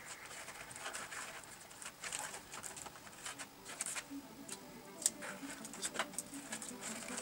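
Cardboard pieces being handled and pressed into a cardboard toy boat hull: scattered light taps, clicks and rustles of card against card.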